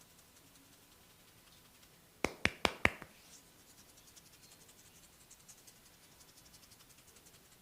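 Four quick sharp cracks in a row, about a fifth of a second apart, from a barber's hair cracking: tufts of the client's hair tugged and snapped against the scalp. Then faint fine scratching of fingers working through the hair.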